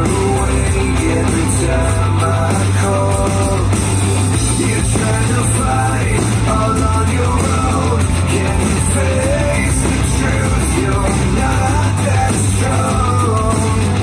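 Rock song with a singer's voice over a steady bass line, loud and dense throughout.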